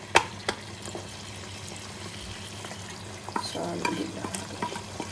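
Tomato purée frying gently in oil in a pot, with a steady sizzle, while a wooden spoon stirs and scrapes. There are two sharp knocks in the first half-second and busier scraping about two-thirds of the way through.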